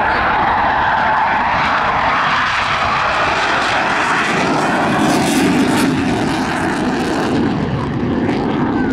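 Fighter jet flying overhead, its engine noise loud and steady throughout, with the pitch of the jet noise sweeping as it passes.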